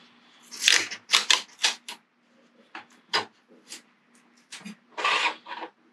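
Half-inch masking tape being peeled back off a fishing rod blank and torn: a string of short rips and crackles, the longest about five seconds in. A turn is being taken off a tape arbor that was wound too thick for the reel seat.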